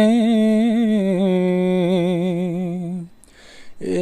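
A male singer, unaccompanied, holding a long ornamented note with a wavering vibrato. He breaks off about three seconds in, takes a breath, and starts a new note near the end.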